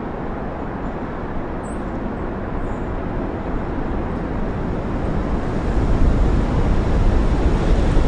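Steady outdoor road-traffic noise, growing louder with a deeper rumble over the last two seconds.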